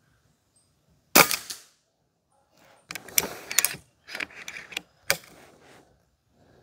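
Karma SLS .22 PCP air rifle firing one shot about a second in, a sharp report with a short tail. A run of metallic clicks follows as the side lever is cycled to chamber the next pellet, then a further sharp snap just after five seconds.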